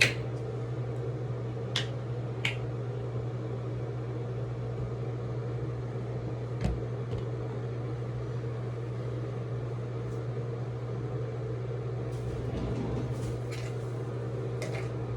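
Steady low mechanical hum, like a fan or air conditioner, with a few light clicks and taps scattered through it, the most coming near the end.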